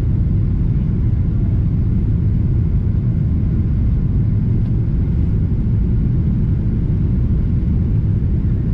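Steady low rumble inside the cabin of a Boeing 777-300ER in flight: engine and airflow noise from its GE90-115B engines, heard from a window seat behind the wing.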